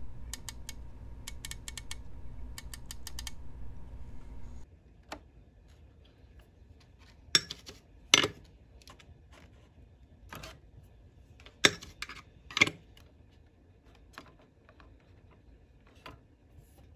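Control shafts of a Pioneer SX-1980 receiver's front-end potentiometers being turned by hand, clicking in three quick runs over a steady low hum that stops about four and a half seconds in. Then a few separate sharp clicks and taps on a circuit board during desoldering with an iron and solder braid.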